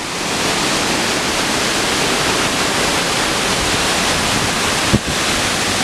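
Steady, loud rush of a 100-foot waterfall close by. A single short knock comes about five seconds in.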